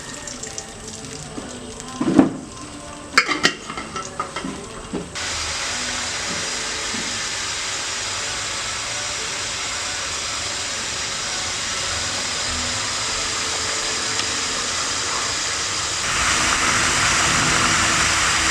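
A few sharp knocks, then, from about five seconds in, pigeon meat sizzling steadily as it fries in hot oil, getting louder near the end.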